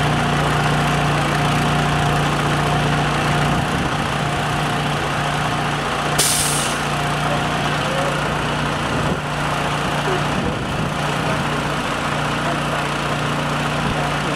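Steady engine hum of the machinery slowly raising the MSM self-erecting jig on its trailer, with a brief sharp hiss about six seconds in.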